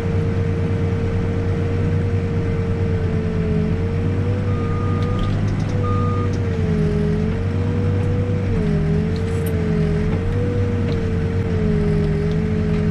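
New Holland B95 backhoe loader's diesel engine and hydraulics running under digging load, the engine note swelling and easing every few seconds with a steady whine that wavers slightly in pitch. Two short beeps sound about five and six seconds in.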